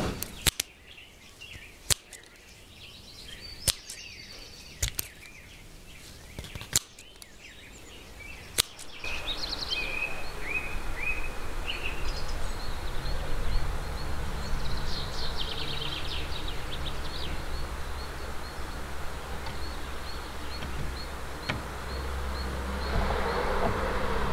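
Wooden hand loom knocking as wool is woven: sharp wooden knocks every second or two. About nine seconds in, this gives way to outdoor ambience, a steady low wind rumble with birds chirping and a run of quick high ticks.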